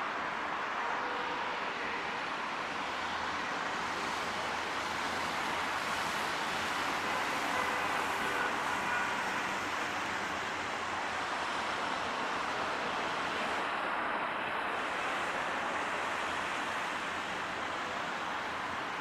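ALCO RSD-30 diesel locomotive hauling a heavily loaded passenger train toward the listener, heard as a steady, even rumble and hiss with faint engine tones, a little louder around the middle.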